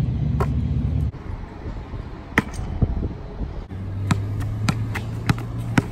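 Basketball bouncing on an asphalt court: a few single bounces, then a steady dribble of about three bounces every two seconds near the end. A low traffic hum runs underneath.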